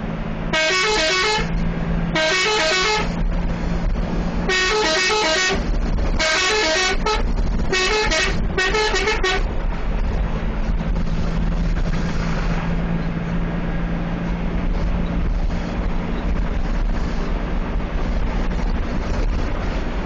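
Bus telolet horn, a multi-tone musical horn, sounding six short melodic blasts over about nine seconds, each a run of stepping notes. After the blasts the bus's engine and road noise carry on as a steady drone.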